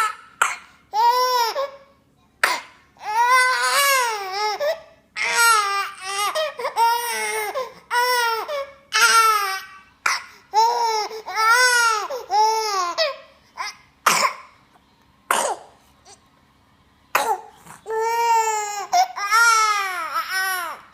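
A young child crying in repeated rising-and-falling wails, broken by several short, sharp coughs, two of them about a second apart past the middle.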